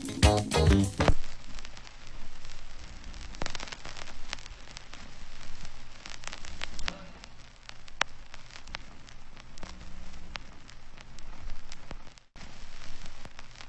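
Reggae music stops about a second in, leaving steady crackle and scattered pops: vinyl record surface noise.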